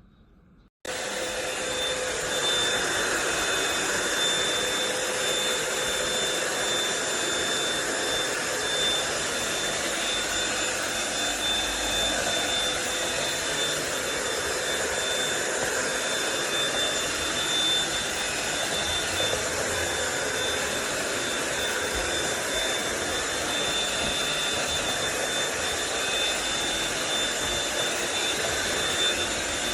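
Cordless stick vacuum cleaner switched on about a second in, its motor then running steadily with a high whine.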